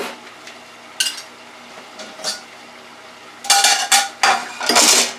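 Metal clanking from a deep fryer's basket as the French fries are taken out: a couple of single knocks, then a loud run of clatter near the end.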